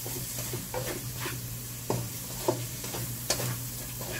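Tuna sisig sizzling in a pan while being stirred, with a spatula scraping and knocking against the pan several times.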